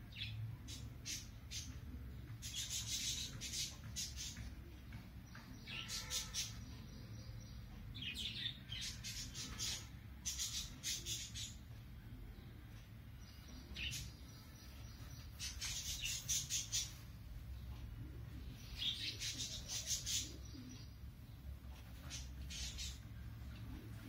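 Budgerigars giving bursts of quick, harsh chirps, a cluster every one to three seconds, which the owner takes for anger at spice finches intruding. A low steady hum runs underneath.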